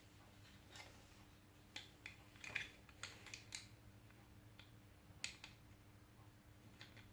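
Small, sharp plastic clicks and taps from the power window master switch housing being pried and pushed apart by hand. A quick cluster of clicks comes in the middle, and a single sharper click follows about five seconds in.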